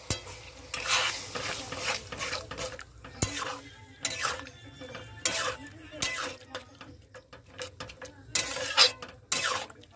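Metal spatula stirring wet boiled lentils into masala in a metal pan, making repeated scrapes and clinks against the pan at uneven intervals.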